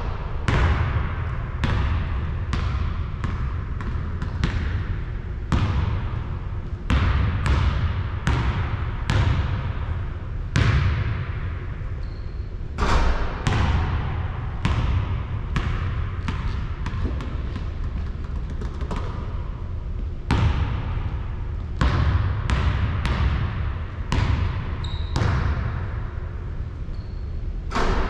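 A basketball bouncing on a hard court over and over at roughly one to two bounces a second, unevenly spaced. Each bounce is a sharp thud followed by a short echo.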